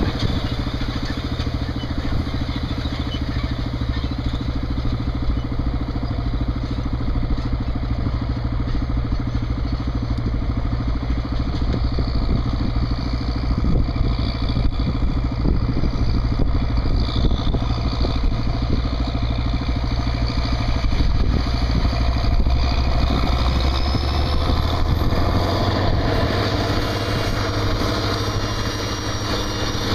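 Case IH Quadtrac tractor's diesel engine running steadily, with the turbocharger's high whistle above it. Late on, a thin high tone rises in pitch and the engine note shifts near the end.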